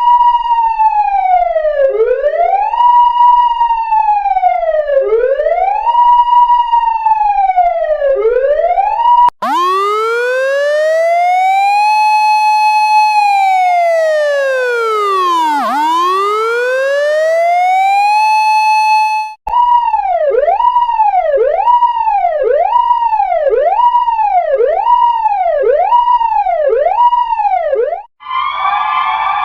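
Electronic emergency-vehicle sirens in three patterns cut one after another. First a wail that climbs quickly, holds and falls slowly about every three seconds. Next a slow wail that climbs, holds, sweeps down and climbs again. Then a fast yelp at about one cycle a second, and near the end a different steady buzzing multi-tone sound begins.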